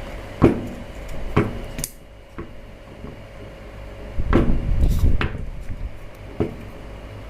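Scattered metallic clicks and knocks from working and handling a Yamaha R15 V3's ABS modulator unit, being checked after polish was sprayed in to free its jammed valves. The knocks come thickest about four to five seconds in.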